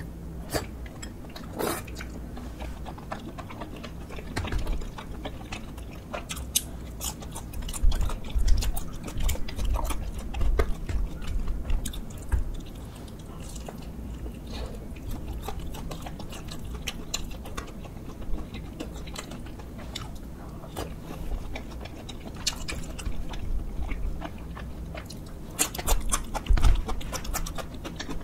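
Close-miked chewing and biting of spicy tteokbokki rice cakes, with many short wet mouth clicks, louder and busier in a couple of stretches.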